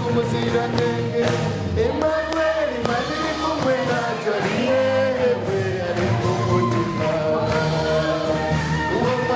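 A gospel chorus sung with instrumental backing: sung melody lines over sustained bass notes and a steady beat.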